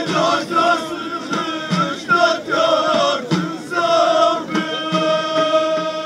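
Ahidous, Amazigh group chanting: a chorus of men's voices singing held notes together, with drum beats struck through it.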